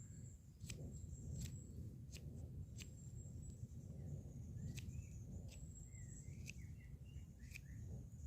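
Faint woodland ambience: birds chirping and whistling, with a steady thin high note and a low rumble underneath. Sharp clicks come roughly once a second throughout.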